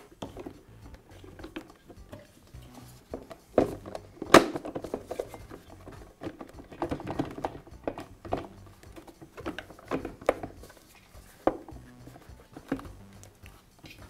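Plastic compressor housing shell knocking and clicking against the pump assembly in a run of irregular taps and knocks as it is shifted around to seat over the pump and its rubber isolator; the loudest knock comes about four seconds in.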